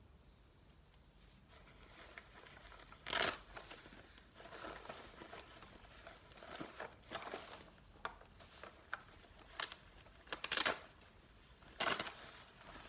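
Fabric drawstring makeup bag being handled and gathered up: the cloth rustles and crinkles in short bursts, with a sharp louder swish about three seconds in and two more near the end.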